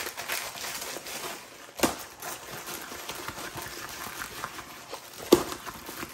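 A tightly rolled diamond-painting canvas, plasticky and stiff, rustling and crinkling with its protective sheet as it is unrolled by hand. There are two sharp clicks, one about two seconds in and a louder one a little past five seconds.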